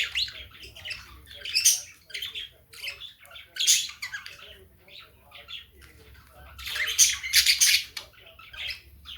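Pet cockatiel and budgies chattering, with repeated short, sharp squawks and screeches coming in bursts. The busiest and loudest run of calls comes near the end.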